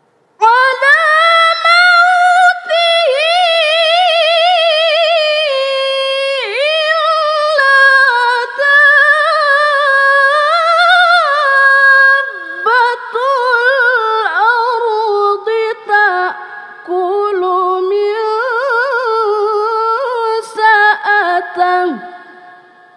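A woman reciting the Qur'an in the melodic tilawah style: one long, ornamented phrase with rapid pitch wavers and slides, starting about half a second in and fading out near the end.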